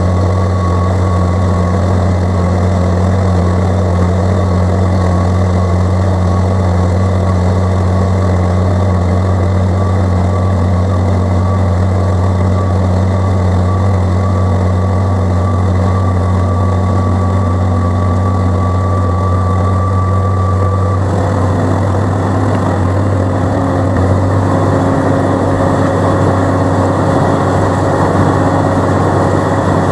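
Farm tractor engine running steadily, with a slight change in its note about twenty seconds in.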